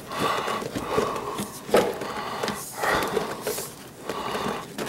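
Irregular rubbing and rustling with a few light knocks, from a hand working among rubber hoses and wiring in a car's engine bay.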